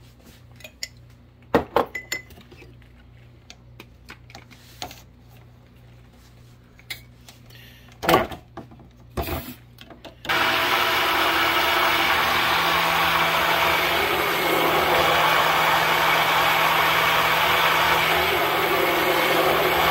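An electric immersion (stick) blender runs steadily in a tall plastic cup of runny egg-and-oil mayonnaise mix. It starts about halfway in and cuts off right at the end. Before it, there are a few light knocks and clicks.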